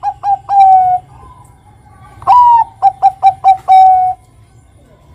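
Bangkok-strain zebra dove (perkutut) cooing. A song phrase ends about a second in, and a full phrase follows about two seconds in: a long falling opening note, a quick run of about five short notes, and a long held closing note.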